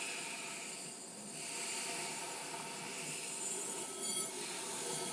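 Sugar being poured, a steady grainy hiss of falling grains that eases briefly about a second in and then picks up again.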